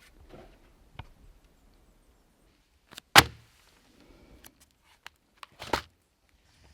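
Knocks and clunks from yurt window units and framing being handled and set down: a few light taps, a loud clunk about three seconds in, and another loud clunk near the end.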